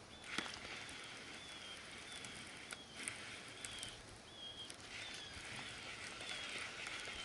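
Faint outdoor ambience: a small creature gives short, high chirps over and over, about one every 0.7 seconds, each dipping slightly in pitch, over a steady soft hiss. There is a single sharp click about half a second in.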